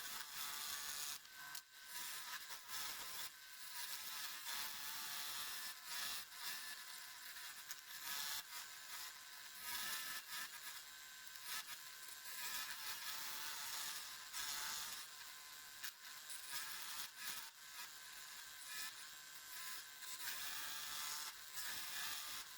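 Scroll saw cutting wood, its blade buzzing steadily, with the sound rising and dipping as the piece is fed through.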